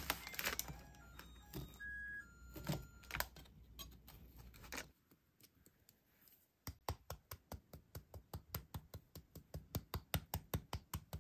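A knife cutting through brownies on a paper liner, with paper crinkling and the blade clicking. After a short silence, a small mesh sieve is tapped steadily, about three or four light taps a second, dusting powdered sugar.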